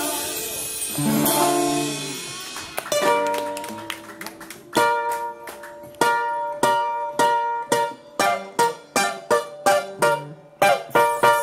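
Live tondero music led by acoustic guitar: a held chord dies away, a few single plucked notes follow, then strummed chords settle into a steady rhythm of about two strokes a second.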